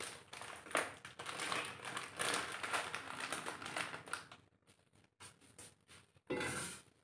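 Plastic wrapper of an instant-noodle packet crinkling and crackling as it is torn open and handled, dense for about four seconds. It then goes quieter, with one short rustle near the end.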